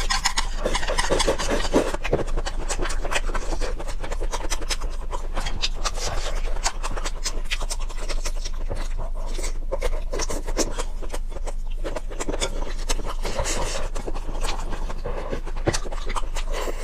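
Close-miked eating sounds: a dense, steady stream of small crackly clicks and rubbing noises from chewing and mouth movements, over a constant low hum.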